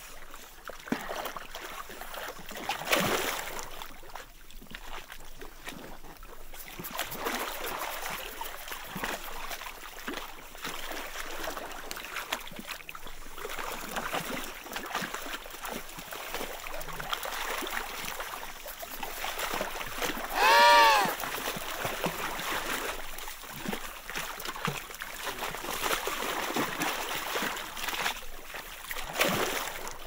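Emperor penguins splashing in and out of a hole in the sea ice, with water sloshing and many short splashes throughout. About two-thirds of the way through comes one loud penguin call, a short note that rises and falls in pitch.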